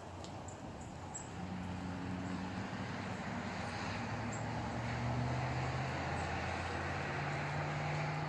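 A distant engine droning steadily, swelling over the first few seconds and staying up.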